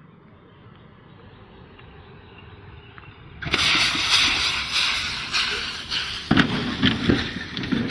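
A loud rush of noise full of rapid cracks and knocks sets in suddenly about three and a half seconds in, with heavier thumps near the end: an SUV jumping the curb and running down a young street tree.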